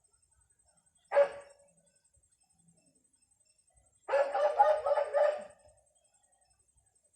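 A dog-like animal call: one short yelp about a second in, then a longer, drawn-out call of about a second and a half starting about four seconds in.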